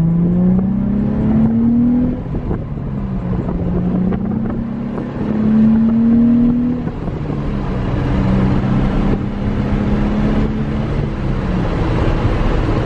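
Nissan 350Z's VQ35DE V6 pulling away under acceleration. The revs climb, drop at an upshift about two seconds in, climb again, then settle to a steady cruise from about seven seconds in.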